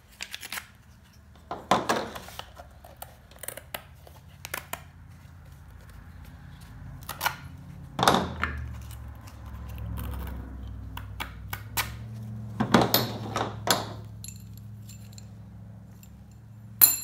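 Toy truck wheels and metal axle rods being handled and set down on a table: scattered clicks, clinks and knocks of metal and rubber on a hard surface, over a faint low hum.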